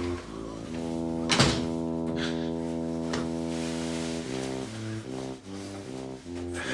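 Film score music: a low, brassy melody of short steady notes changing pitch, with one long held note through the middle. A single sharp hit sounds about a second and a half in.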